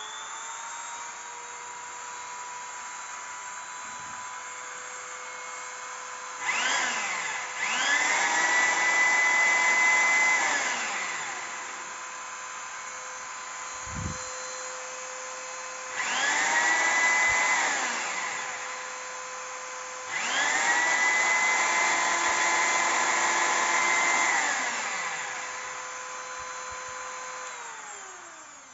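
Handheld rotary tool running with a steady high whine, winding down near the end. Over it, a Foster electric drill is run three times, each time spinning up, running briefly and winding down; the drill is the louder of the two. Both draw power from a 900 VA Luminous inverter under a load test.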